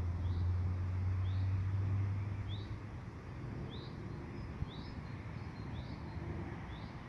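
A bird calling a short rising note over and over, about once a second, over a low rumble that fades out about two and a half seconds in.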